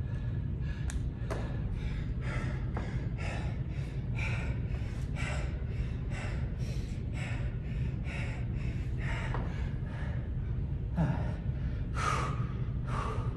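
A man panting hard, short heavy breaths about two a second, as he recovers between rounds of a heavy dumbbell workout. A steady low hum runs underneath. Near the end comes a louder, grunting breath.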